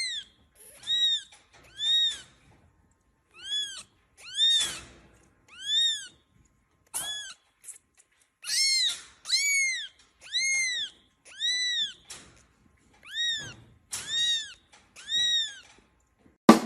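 A kitten mewing over and over: a dozen or so high, thin calls, each about half a second long, rising then falling in pitch, with short pauses between them.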